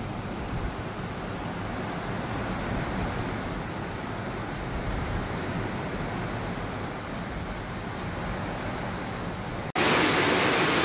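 Steady rushing noise of a car driving through a flooded street, the floodwater washing around it. Near the end it cuts suddenly to much louder, steady heavy rain.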